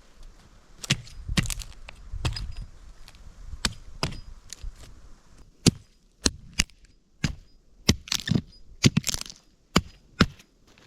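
Dry wood cracking in an irregular series of sharp cracks, about fifteen in all, closer together and sharper in the second half.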